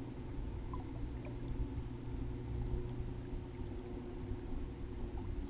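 Tiller-steered electric outboard (trolling) motor on a small dinghy running steadily under way: an even low electric hum.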